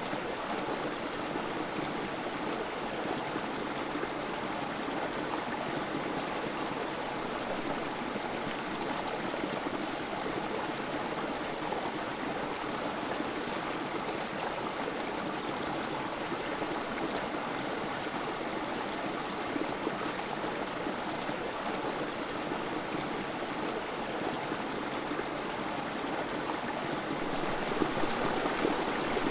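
Creek water trickling and spilling over rocks in a small cascade: a steady, even rush of running water, a little more uneven near the end.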